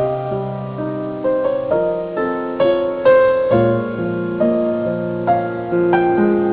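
Slow, gentle solo piano music: melody notes struck one after another, roughly two a second, each fading away over held lower notes.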